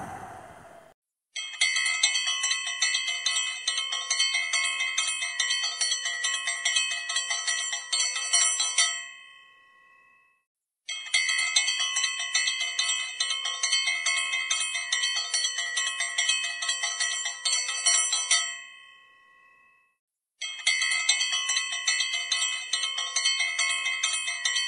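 Small bells ringing rapidly in three long bursts of about seven to eight seconds each. The first two die away and stop, and the third begins near the end. A rushing noise fades out in the first second.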